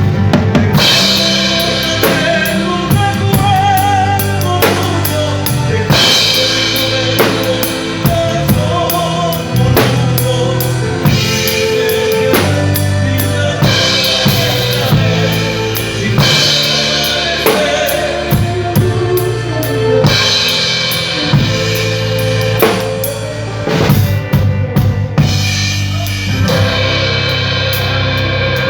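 A band playing at a sound check, led by a drum kit with bass drum, snare and a steady run of cymbal strokes, over held low notes and other pitched instruments.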